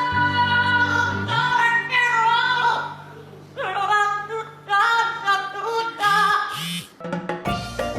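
Music with a singing voice: a wavering sung melody over steady bass notes, dipping briefly about three seconds in.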